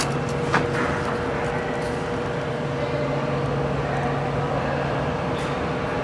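Steady mechanical hum with a constant low tone, from a running machine, with a short rustle and click at the start.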